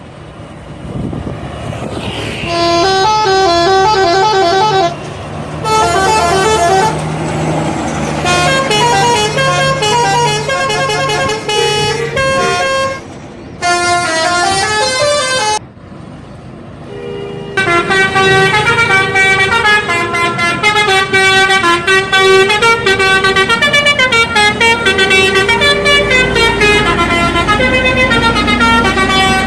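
Indonesian bus telolet horns, multi-tone air horns playing quick tunes of rapidly changing notes, with a bus engine running underneath in the first half. The tunes break off briefly twice about halfway through, then one long unbroken tune plays on.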